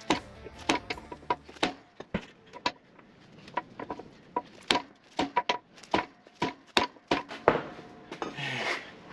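Repeated hammer blows on a steel driver, about two a second, each with a short metallic ring, driving a worn bushing out of a backhoe loader arm. A brief rushing noise comes near the end.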